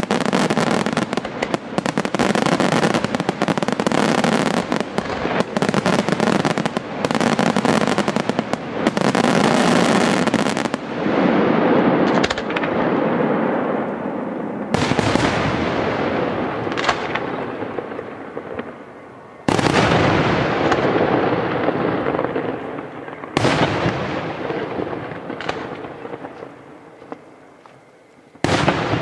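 Aerial fireworks shells bursting: a dense, rapid barrage of bangs for the first ten seconds or so, then single loud bursts every few seconds, each followed by a long fading echo.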